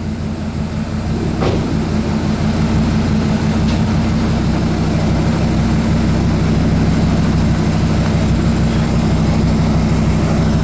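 Fiat Marea 2.4 20v inline five-cylinder engine running steadily through an exhaust with only a catalytic converter and a muffler, the muffler set mid-car with a straight pipe after it. It grows louder over the first few seconds, then holds at the same speed.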